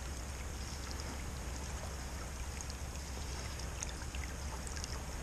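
River water flowing steadily: an even hiss of moving current with a constant low rumble beneath it.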